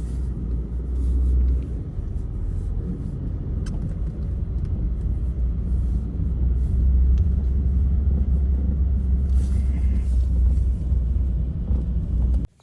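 Strong wind buffeting the microphone: a deep, unpitched rumble that rises and falls in strength, then cuts off abruptly near the end.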